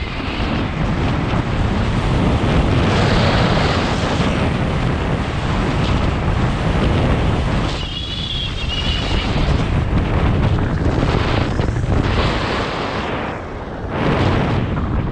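Wind rushing over the microphone of a camera carried by a skier going downhill, mixed with the skis sliding on packed snow; it eases briefly about eight seconds in and again near the end.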